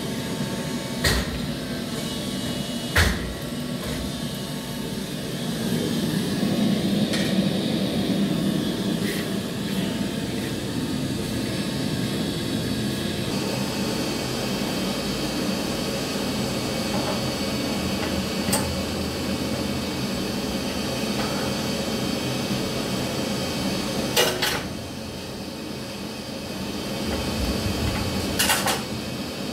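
Steady hum of hot-riveting press equipment, with about six sharp metal clanks of steel tooling and rivets spread through it. The level dips briefly a few seconds before the end.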